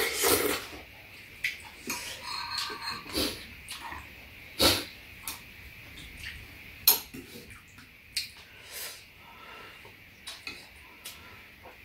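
Eating sounds: metal spoons and chopsticks clicking against bowls now and then, with soft-tofu stew being sipped and slurped from spoons. The clearest clicks come about five and seven seconds in.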